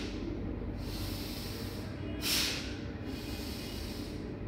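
One sharp, forceful exhale through the nose about halfway through, with a fainter breath in before it: a slow kapalbhati pranayama breathing stroke.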